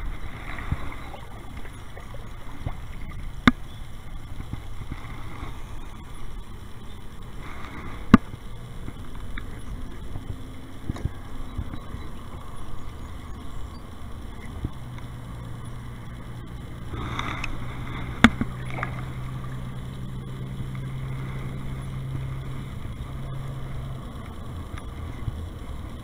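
A kayak on the river with a fish on the line: water moving against the hull and low rumbling handling noise, with three sharp knocks spread through it. A low steady hum comes in past the middle and stops a couple of seconds before the end.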